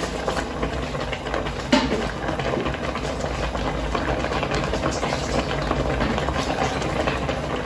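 A pot of mrenda (jute mallow stew) simmering on a gas burner, bubbling steadily over a low, even hum, with one sharp click about two seconds in.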